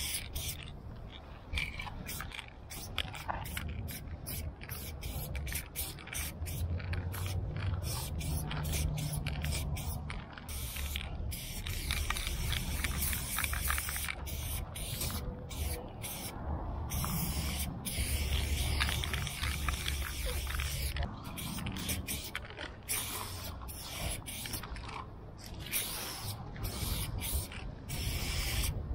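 Aerosol spray-paint can with a fat cap hissing in many strokes, each cut off by a short pause as the paint is laid on, with a low rumble underneath.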